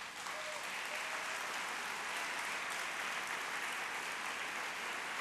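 Audience applauding: a steady, even clapping that starts at once and holds its level.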